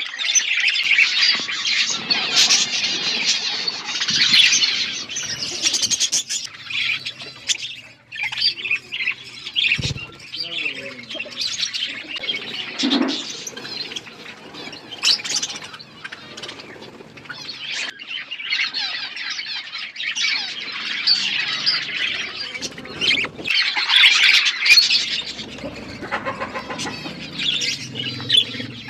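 A flock of budgerigars chattering with dense warbling and squawks, in louder and quieter waves, with a few sharp clicks mixed in.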